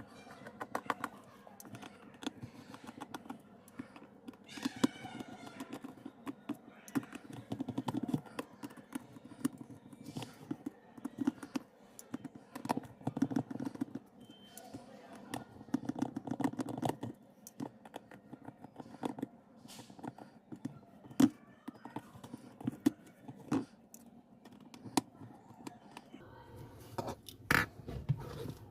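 Repeated small clicks, taps and scraping of hand tools working on a smartphone during a screen repair, with an indistinct voice in the background.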